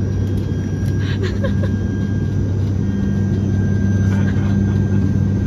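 Steady engine drone of an airliner heard inside the passenger cabin: a low, even hum with a thin higher whine over it, growing a little fuller about three seconds in.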